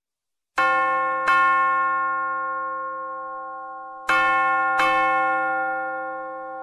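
Bell chimes struck in pairs, two strikes about a second in and two more about four seconds in, each ringing out and slowly fading.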